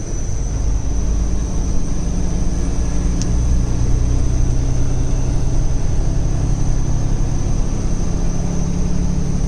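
Heavy truck's diesel engine running steadily under load as the fully loaded tractor-trailer drives, heard from inside the cab as a low, even hum. A faint steady high whine sits over it, and there is one brief click about three seconds in.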